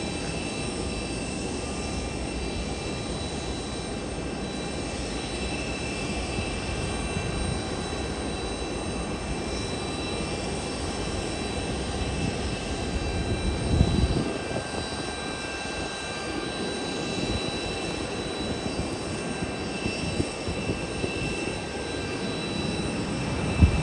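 Airbus A320 jet engines running steadily on landing, a constant rumble with a thin high whine held over it. Brief louder low surges come about halfway through and again at the end.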